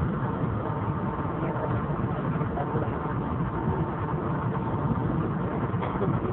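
Steady traffic noise: vehicle engines running, with no single event standing out.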